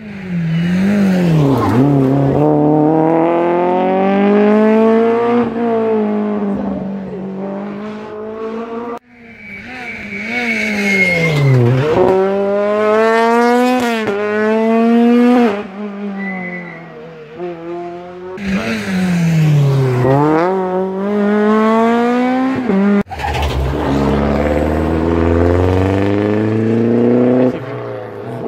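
Rally cars taking a hairpin one after another. Each engine's pitch drops as the car brakes into the bend, then climbs in repeated rises as it accelerates away up through the gears.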